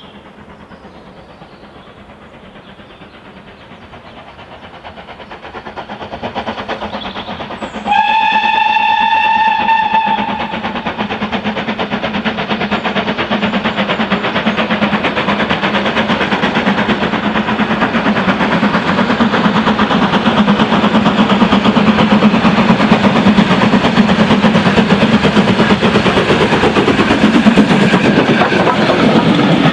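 BR Standard Class 4MT 2-6-4 tank steam locomotive approaching with a passenger train, its exhaust faint at first and growing louder. About eight seconds in there is a whistle blast of about two and a half seconds. The locomotive then passes close by under steam, with its coaches rolling past near the end.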